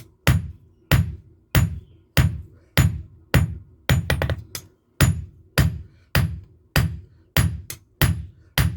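Hand hammer blows on leaf-spring steel on an anvil, a steady strike about every 0.6 s, with a quick run of lighter taps about four seconds in.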